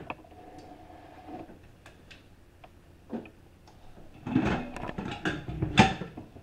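Kitchen items being handled and moved on a counter: a few light ticks at first, then from about two-thirds of the way through a run of knocks and clatters, the loudest near the end.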